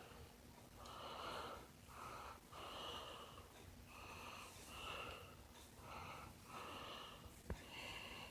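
A person breathing softly and evenly close to the microphone, in and out about every two seconds, with a single small click near the end.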